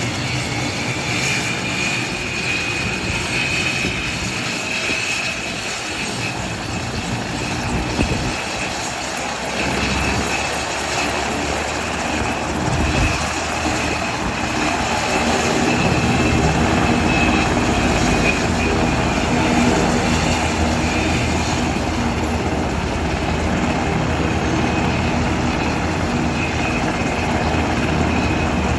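Sikorsky S-70 Black Hawk helicopter's twin turboshaft engines starting up on the ground: a steady high turbine whine over a rushing noise. A low rumble builds from about ten seconds in, and the sound grows louder around sixteen seconds as the engines spool up.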